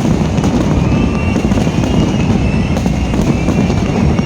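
Fireworks display going off: a dense, continuous rumble of bangs and crackles in quick succession.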